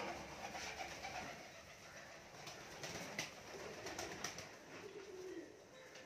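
Domestic pigeons cooing in low, warbling coos that grow stronger in the second half, with scattered short sharp taps throughout.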